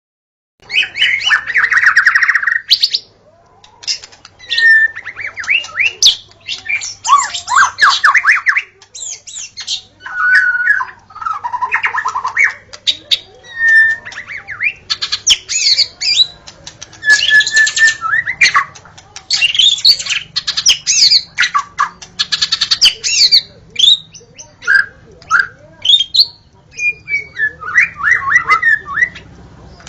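White-rumped shama (murai batu) singing a varied song, starting about half a second in: phrase after phrase of quick whistles, trills and harsh chattering notes, with short pauses between them.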